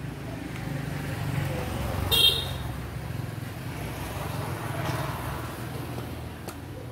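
Street traffic: a short, high horn-like beep about two seconds in, then a motorbike passing by, over a steady low hum.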